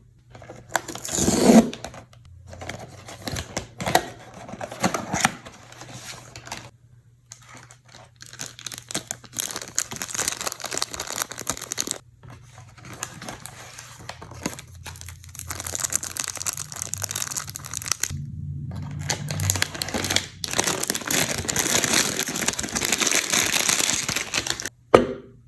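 Toy packaging being torn open and crinkled by hand in irregular stretches of rustling with short pauses, loudest near the end.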